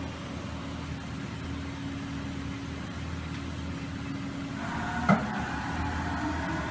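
Haas VF-3YT CNC vertical machining center running with a steady mechanical hum. A higher whine joins about two-thirds of the way in, and a single sharp clack follows soon after.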